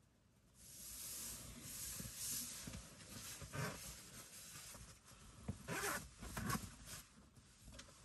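Rustling and scraping of handled fabric or gear, with a few louder zip-like strokes in the second half.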